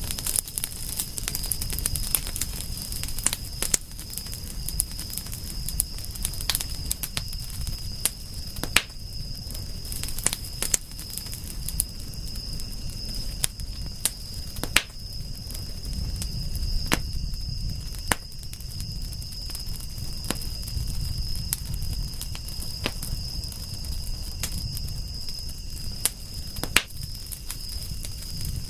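Wood fire crackling, with sharp pops scattered irregularly over a steady low rumble of the flames. A steady high-pitched tone runs underneath throughout.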